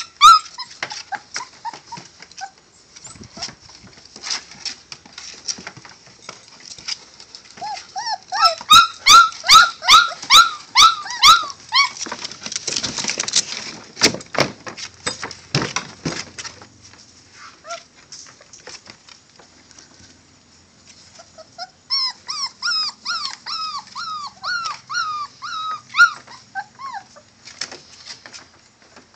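Young Catahoula bulldog puppies whimpering and squealing in two runs of short, high, falling cries, about two a second, with scratching and rustling as they crawl over the blanket.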